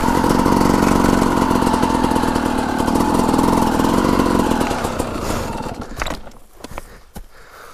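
Yamaha YZ250 two-stroke dirt bike engine running steadily at low revs, then fading and stopping about five seconds in. A few sharp cracks of brush and twigs follow.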